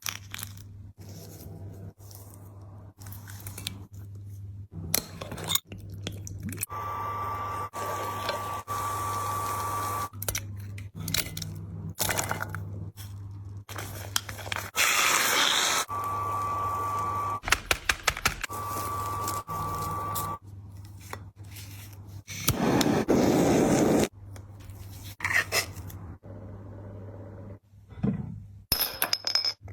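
Close-up eating sounds: chewing and crunching, with utensils scraping on dishes, in short pieces that start and stop abruptly, over a steady low hum.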